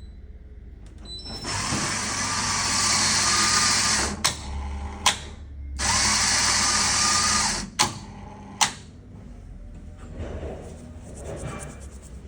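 A coffee vending machine's grinder motor running to dispense a test dose of ground coffee at a 65% setting. It runs in two spells of about two and a half and two seconds, with sharp clicks between and after them.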